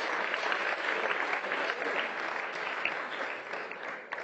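Audience applauding, dense clapping that thins and dies away near the end.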